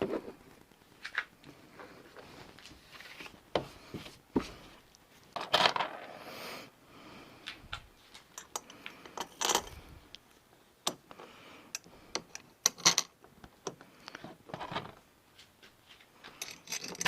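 Irregular light clicks, metallic clinks and short rustles of small hardware and hand tools being handled.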